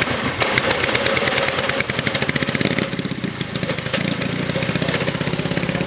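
Small single-cylinder mini bike engine running steadily with a fast, even beat of firing pulses, easing slightly about three seconds in.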